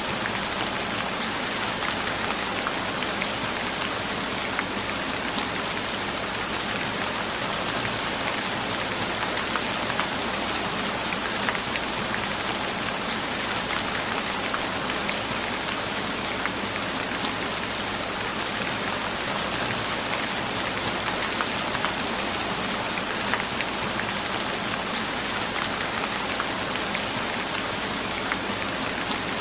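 Steady rain falling on a surface: an even hiss dotted with many small drop taps.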